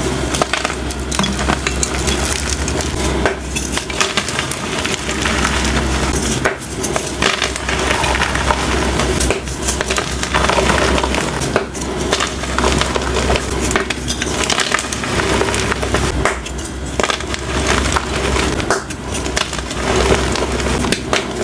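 Blocks of dyed gym chalk crushed and crumbled by hand: continuous crunching with many small, dense crackles as the chalk breaks into powder.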